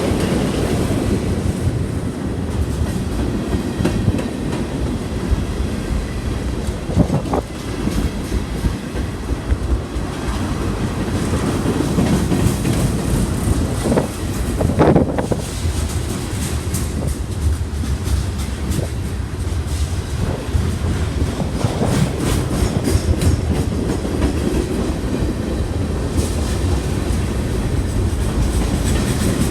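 A train rolling past with the steady rumble and clatter of its wheels on the rails. Brief higher-pitched squeals come about a quarter of the way in and again near the middle.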